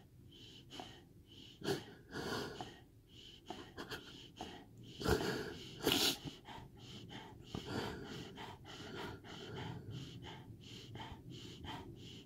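Siberian husky gravely ill with parvo breathing fast and wheezily, short breaths about twice a second, with a few louder gasps about two seconds in and again around five to six seconds in: the laboured breathing of a dog near death.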